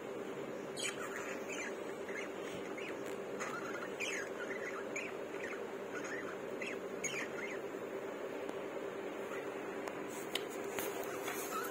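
Budgerigars chattering: quick, short chirps and warbles scattered all through, over a steady low hum.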